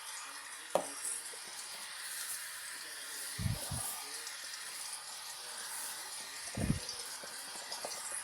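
LG washing machine running on a heavy-load cycle: a steady hiss with a few low thumps from the drum, two close together near the middle and one more about two-thirds of the way in.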